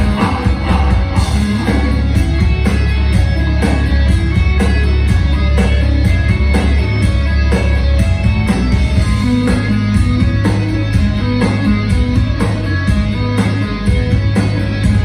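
Live metal band playing at full volume through a club PA: distorted electric guitars, bass and drums in a steady beat, with a heavy low end.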